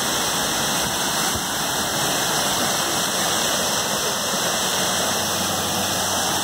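Waterfall plunging into its pool close by, a steady, loud, unbroken rush of falling water.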